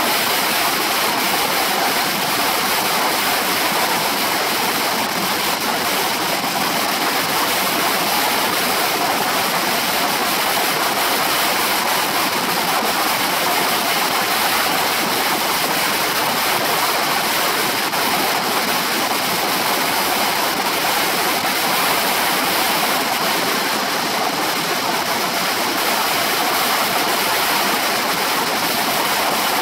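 Steady wind rushing over a shoulder-mounted camera's microphone on a Honda PCX 125 scooter moving at road speed. It is an even rushing noise with no engine note standing out.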